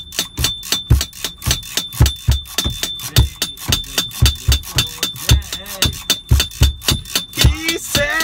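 A steady hip-hop beat: a low kick thumps about twice a second under quick, crisp hi-hat-like ticks, with faint singing coming in near the end.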